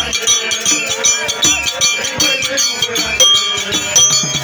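Football supporters' street band: a large hide-covered wooden drum beaten in a quick steady beat, with jangling metal percussion and a crowd of voices singing and chanting over it.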